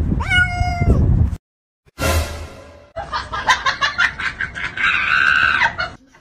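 A cat meows once with a falling pitch over a low rumble. After a brief silence comes a single sudden crash, then about three seconds of quick pulsing, chirpy sound that stops abruptly.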